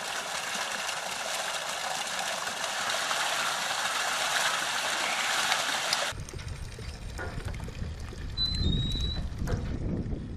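Water pouring steadily with a rushing splash, which cuts off suddenly about six seconds in; after that a low rumble with a few short high whistles.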